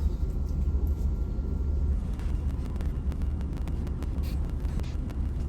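Steady low rumble of a large ferry's engines and hull, heard on board while under way.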